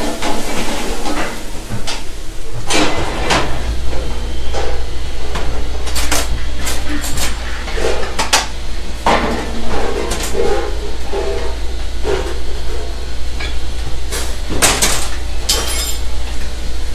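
Metal sauté pans and utensils clanking and scraping on a commercial gas range, in sharp irregular knocks, over a steady low hum.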